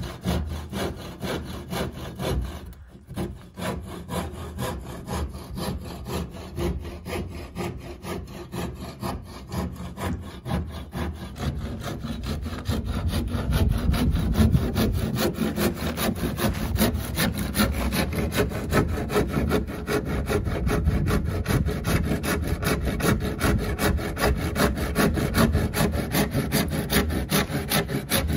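Saw cutting through the wooden boards of a garage gate with quick, even back-and-forth strokes, splitting the assembled gate into its two leaves along the middle seam. The sawing grows louder about halfway through.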